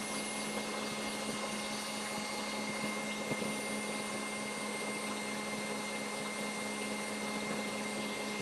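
Electric stand mixer running steadily at speed, whipping egg whites and sugar into a stiff meringue for macarons. A constant motor hum with a thin high whine over it.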